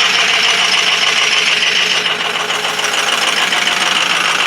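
Ford 6.0 Powerstroke V8 turbodiesel running cold with a steady, loud clatter at 17°F, while misfiring on the bad injectors for cylinders 1 and 5.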